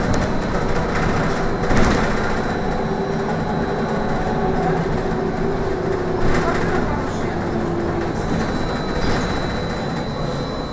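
Trolleybus cabin on the move: the electric traction drive's steady whine over tyre and road rumble, with a few knocks about two, six and nine seconds in.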